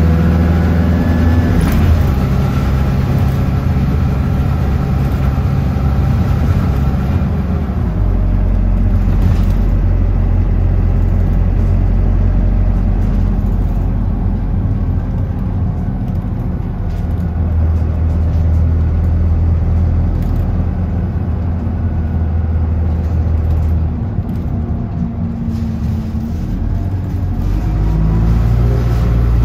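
Bus engine running as the bus drives, heard from on board. The engine note shifts about two seconds in, holds steady through the middle, then climbs near the end as the bus accelerates.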